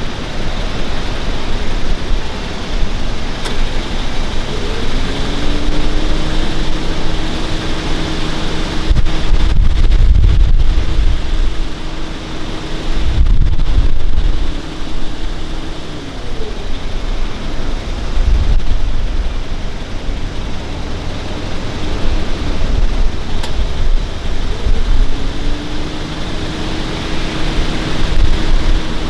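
A motor's steady hum that rises in pitch about five seconds in, holds, falls away about eleven seconds later and rises again near the end, over wind buffeting the microphone with deep rumbling gusts.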